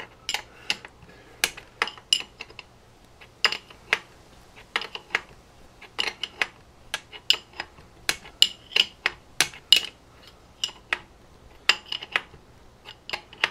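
Sharp metallic clicks of a 19 mm wrench working the fork top cap of a 1970 Honda CL350 down tight, coming in irregular short runs with brief pauses.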